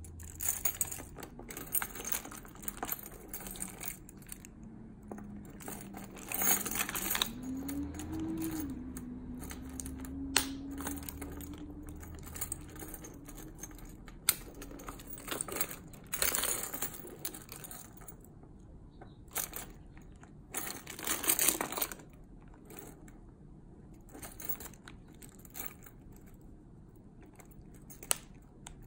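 Keys jangling on a keyring and a metal key clicking and scraping against the plastic casing of a 2015 Jeep Cherokee key fob as the fob is prised open. The handling comes in short bursts of rustling, with single sharp clicks now and then.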